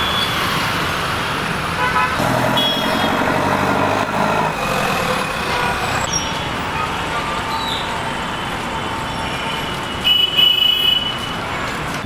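Busy city street traffic: motorbikes, cars and auto-rickshaws running past, with horns honking, a longer honk about three seconds in and a loud, high-pitched one about ten seconds in.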